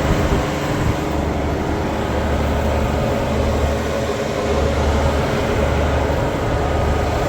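Caterpillar D8T dozer's six-cylinder C15 diesel engine idling steadily while it warms up from a cold start.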